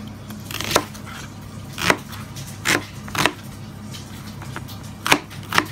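Kitchen knife chopping peeled onions on a plastic cutting board: six sharp strikes of the blade through the onion onto the board, at uneven intervals.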